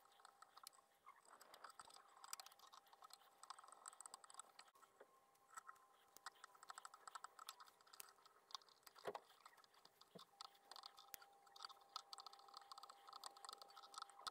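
Faint, irregular clicks and rustles of fly-tying thread being wrapped from a bobbin around a wire lure shank while strands of tinsel flash are handled and tied in at the vise, with a slightly louder tap about nine seconds in.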